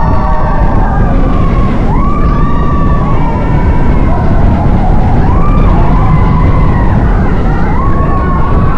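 Several people screaming, in long held wails that rise and fall away and overlap at irregular moments, over a loud steady rumble of rushing air and the coaster train: riders screaming on a roller coaster.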